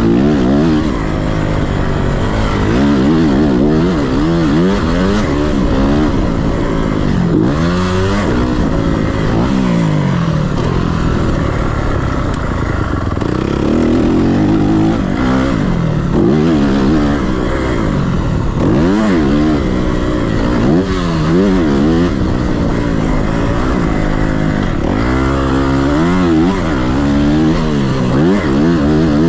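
Dirt bike engine revving up and backing off over and over, its pitch climbing and dropping many times, heard from on the bike while riding.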